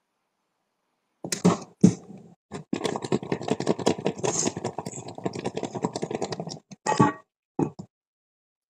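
Honey-coated baby carrots rattling against the inside of a small pot as it is shaken briskly for about four seconds, with a few knocks of the pot before and after.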